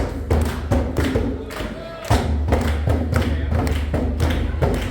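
Live African drums played in a steady, driving beat of heavy low hits, with a short lull about two seconds in before the drumming picks up again.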